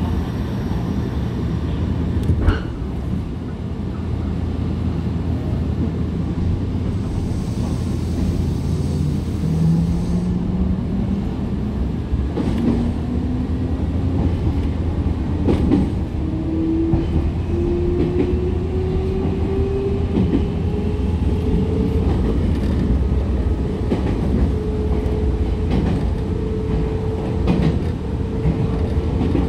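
Nankai Koya Line electric train heard from inside the front car as it gathers speed: a steady rumble of wheels on track with occasional rail-joint clicks. From about eight seconds in, a motor whine climbs steadily in pitch.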